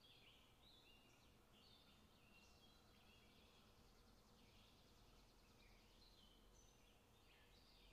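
Near silence: a faint bed of birds chirping, many short overlapping high notes and small glides, over a low hiss.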